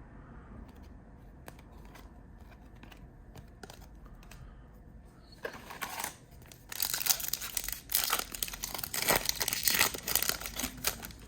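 A few light clicks of cards being handled at first, then, about halfway through, the plastic wrapper of a Panini Prizm trading-card pack being torn open and crinkled in a series of crackling bursts.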